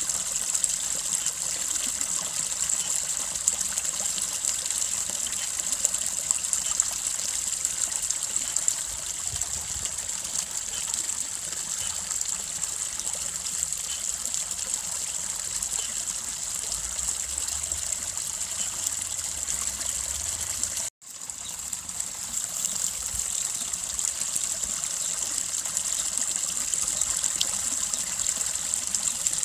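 Babbling brook: water trickling and gushing over stones in a steady, hissy flow. It cuts out abruptly for a split second about two-thirds of the way through, then comes back.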